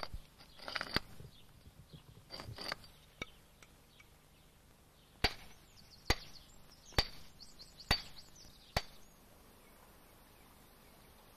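Hammer striking limestone: a few softer knocks in the first three seconds, then five sharp blows about a second apart, each with a brief ring.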